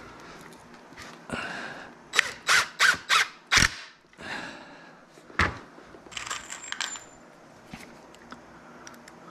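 Yellow DeWalt cordless impact driver driving a pocket-hole screw with a long square-drive bit: a short softer run, then five quick, loud bursts in a row as the screw is driven home. About a second later comes a single sharp click, then a brief cluster of lighter clicks with a thin high whine.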